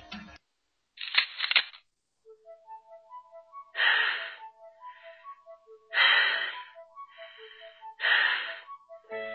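Coughing: three hard coughs about two seconds apart, with quieter wheezy breaths between them, over light, sparse music. A short crackling burst comes about a second in, after the music cuts off.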